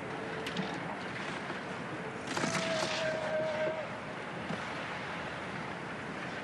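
Ski-course ambience at a giant slalom: a steady rushing of wind and skis on snow, and about two seconds in a spectator's horn sounds one held note for about a second and a half over a burst of crowd noise.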